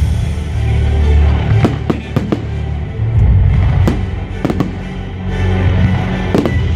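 Aerial fireworks shells bursting: a string of sharp bangs, several in quick pairs and threes, over music playing throughout.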